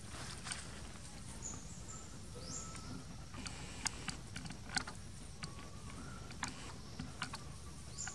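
Outdoor ambience: a steady low rumble under occasional short, high rising chirps and scattered sharp clicks and crackles, most of them in the middle and later part.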